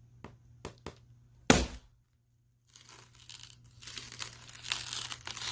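Screwdriver jabbed into a TV screen: a few light taps, one sharp hit, then crackling and scraping that builds as the tip bores a hole through the panel.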